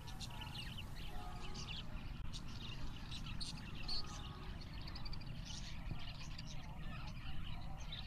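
A crowd of caged budgerigars chirping, many short high chirps overlapping without a break, over a low steady rumble.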